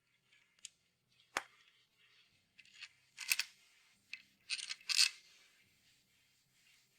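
A handful of separate sharp clicks and clinks of hard objects being handled, the loudest about three and five seconds in.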